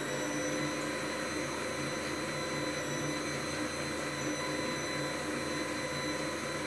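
Kenwood Cooking Chef Gourmet kitchen machine running at speed 1 while warming its bowl of milk mixture to 37 °C: a steady whine of several pitches that holds level throughout.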